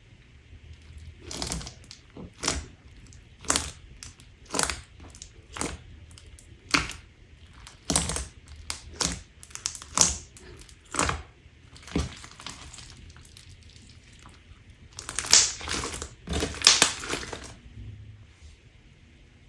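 Crunchy slime being pressed by hand, crackling with each press at roughly one press a second, then a louder run of crunching near the end.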